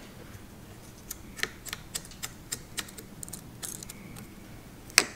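Light clicks of a folding aftermarket handlebar lever on a dirt bike being worked by hand, about three a second for a few seconds, then one louder click near the end.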